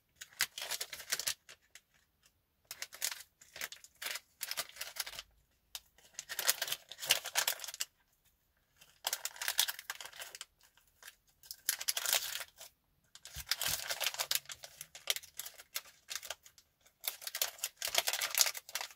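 Small plastic packing bags crinkling and rustling as they are handled, in irregular bursts of a second or two with short quiet gaps between.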